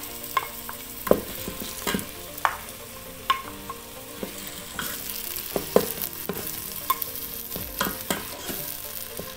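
Wooden spoon scraping and knocking irregularly against a glass bowl and the pot while blended tomatoes are stirred into onions frying in an electric pressure cooker's inner pot, over a steady sizzle.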